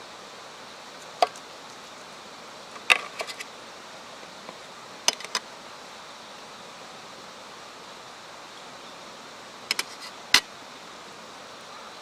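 Knife and fork clinking against a stainless steel plate while cutting grilled chicken: sharp metallic taps, singly and in small clusters, a handful of times, over a steady outdoor hiss.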